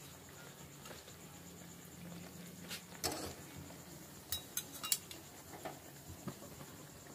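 Sugar-and-flour pitha deep-frying in a pan of oil with a faint sizzle, while a metal slotted skimmer and flat spatula clink and scrape against the pan as it is turned: one clink about three seconds in and a quick cluster of them a second or so later.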